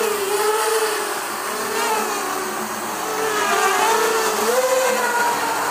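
JJRC JJPRO P175 racing quadcopter's brushless motors and propellers whining in flight, the pitch rising and falling as the throttle changes.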